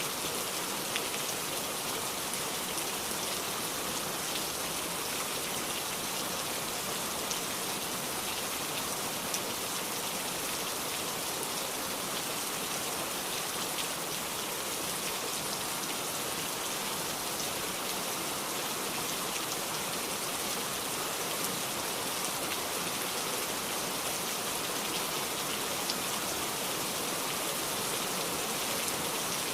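Steady downpour of heavy rain, a dense even hiss with scattered individual drops ticking on a surface.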